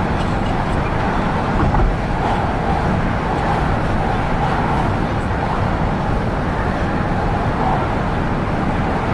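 Steady road noise inside a moving car's cabin: tyres on the road and the engine at cruising speed, with the wash of traffic around it.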